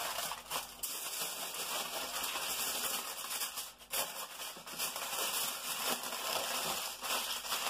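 Aluminium foil crinkling and crackling as hands fold and crimp it tightly into a packet around ribs. It is a dense run of small crackles, with a brief lull about four seconds in.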